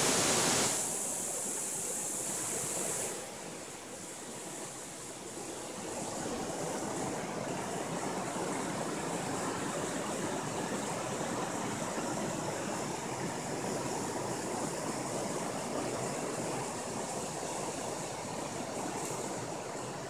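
River water rushing steadily over a shallow rocky stretch.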